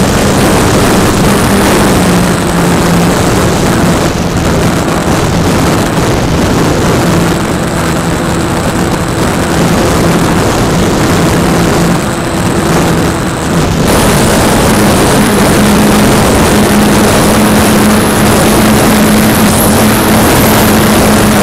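Radio-controlled model airplane's motor and propeller droning steadily in flight, with wind rushing over the onboard microphone. The pitch steps up and the rush gets louder about two-thirds of the way through as the throttle is opened.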